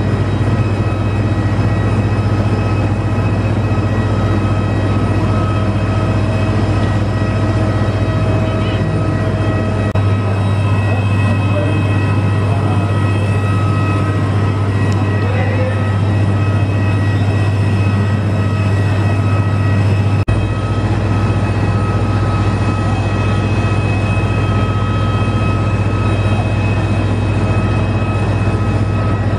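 Parked Airbus A320 airliner running on the apron: a loud, steady low hum with several high whining tones held level throughout.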